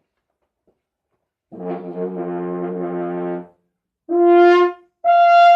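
Trumpet warm-up notes: a softer low note held for about two seconds, then two short, louder notes, the second an octave above the first.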